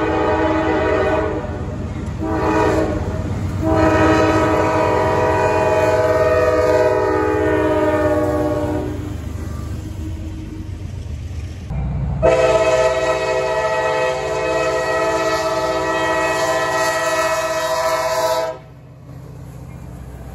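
Diesel freight locomotive air horn sounding at a grade crossing: a few short blasts, then a long one held for about five seconds, over the rumble of the passing train. About twelve seconds in, another locomotive horn starts abruptly, is held for about six seconds, and cuts off suddenly.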